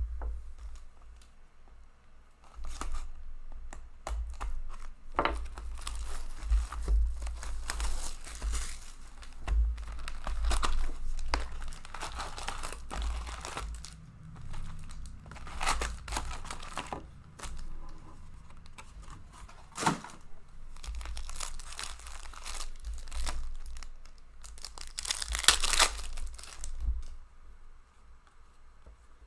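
Foil wrappers of 2019-20 Upper Deck hockey card packs crinkling and tearing as the packs are handled, stacked and torn open by hand, with dull thumps of packs set down on the counter. The loudest tear comes near the end.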